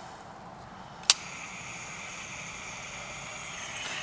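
Gas soldering iron being lit: one sharp igniter click about a second in, then a steady hiss of burning gas as the tip heats toward red hot.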